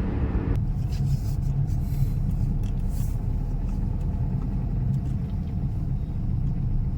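Steady low rumble with a few faint clicks and no speech.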